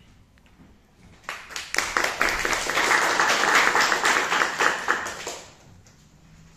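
Audience applauding for about four seconds, starting a little over a second in, swelling quickly and dying away near the end.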